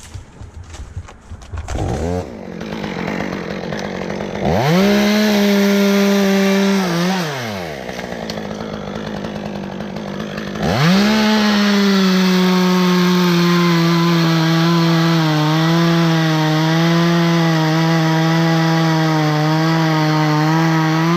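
Two-stroke chainsaw idling, revved up briefly about five seconds in, then held at full throttle from about eleven seconds in, its pitch sagging and wavering slightly as it cuts wood.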